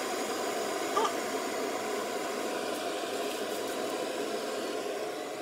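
Electric kettle heating water, a steady rushing noise. A short, sharp sound comes about a second in.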